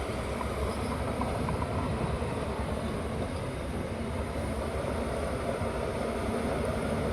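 Bulldozer's diesel engine running steadily, an even low mechanical drone.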